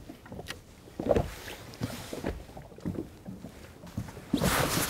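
Small boat drifting with its engine off: water slapping against the hull and scattered low knocks. Near the end a louder rush of wind and water noise sets in.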